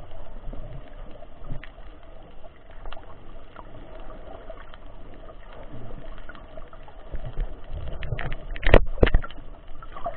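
Underwater sound picked up by a camera held below the surface while snorkeling: a muffled low rush of water with a faint steady hum and scattered small clicks. Near the end come two loud, sharp knocks less than half a second apart.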